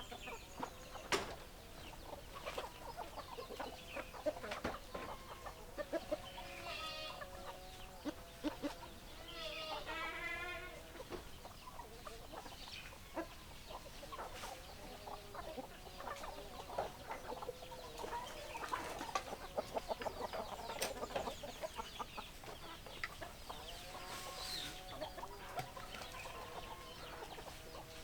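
Chickens clucking: many short calls overlapping, with a longer wavering call about ten seconds in and sharp taps scattered throughout.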